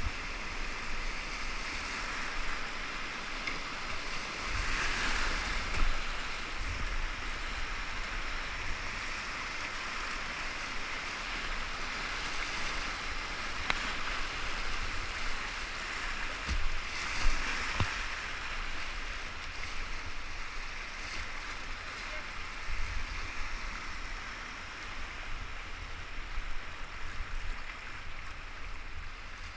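Whitewater rapids rushing past a river kayak: a steady hiss of fast-moving water, with a few sharper splashes and knocks about five seconds in and again around seventeen seconds in.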